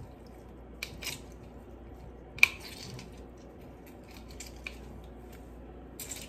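Lemon halves being squeezed by hand: faint wet squishing with scattered small clicks and taps, the sharpest about two and a half seconds in.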